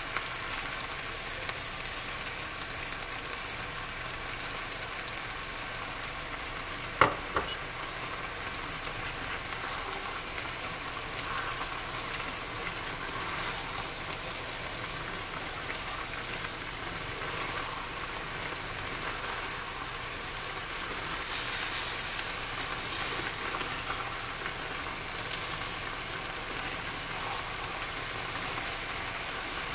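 Vegetables in milk and cornstarch-water sizzling steadily in a pan over high heat, with stirring. One sharp knock about seven seconds in.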